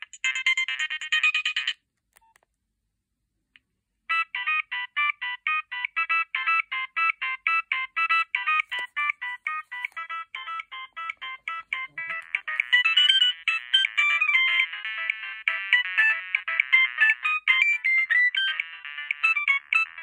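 Nokia 3590 preloaded ringtones previewing through the phone's speaker as electronic beeping melodies. One tune cuts off about two seconds in; after a short gap with a faint click or two, the next starts about four seconds in with evenly paced notes and grows busier with quicker notes about twelve seconds in.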